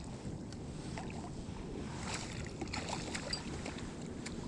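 Steady outdoor background noise by the river, with a few faint short clicks.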